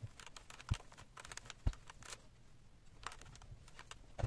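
Steam iron being set down and moved over a cotton napkin on a small padded ironing board, with hands handling the fabric: scattered light clicks and rustles and a few low thumps, two of them about a second apart.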